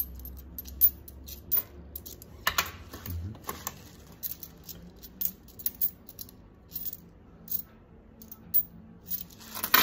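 Loose metal coins clinking and clicking against one another in quick, irregular taps as gloved hands sift and pick through a pile of them. The sharpest clinks come about one and two and a half seconds in, with a dense run of clinks near the end.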